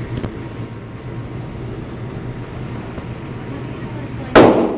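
A single very loud gunshot about four seconds in, sharp and short with a brief echo, over a steady low hum.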